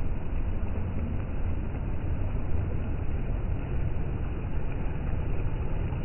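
Steady surf noise of small waves breaking and washing up a sandy beach, dominated by a low rumble.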